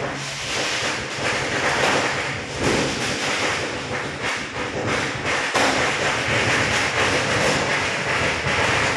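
Firecrackers going off: a steady, dense crackle of many small pops with a hiss under it.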